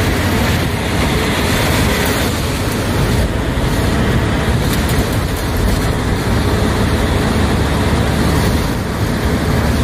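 Bus engine running and road noise heard from inside the cabin while it drives along, a steady loud low drone with no changes.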